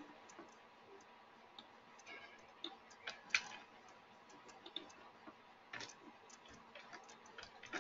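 Faint, scattered clicks of a computer mouse and keyboard, a few at irregular intervals, the loudest about three seconds in.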